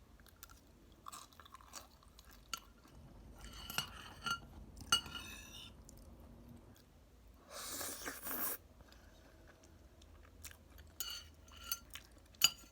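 Close-up chewing of buldak carbonara noodles, with scattered small clicks, a second-long rush of noise about eight seconds in, and a cluster of clicks near the end.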